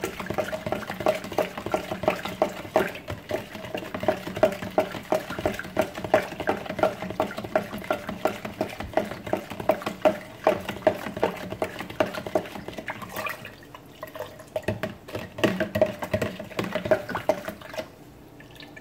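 A long metal spoon stirring lemonade in a plastic pitcher: the spoon knocks against the pitcher's side about three times a second over the swirl of the liquid. The stirring slackens about two-thirds of the way through, picks up again, then stops just before the end.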